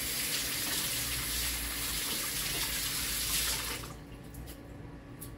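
Water running from a wall tap into a ceramic laundry sink as hands are rinsed under the stream. The tap is shut off just under four seconds in, and a few drops then tick into the basin.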